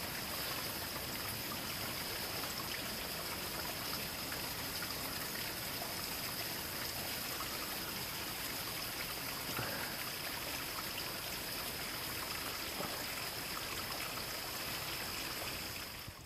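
Steady, even rushing of a flowing stream, with a thin high hiss over it; it fades out at the very end.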